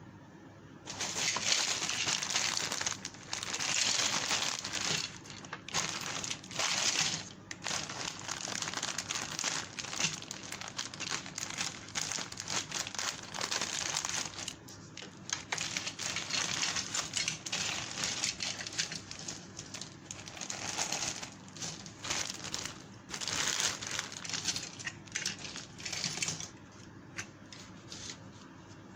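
Plastic packaging crinkling and rustling in irregular bursts as kit parts are unwrapped and handled, stopping a couple of seconds before the end.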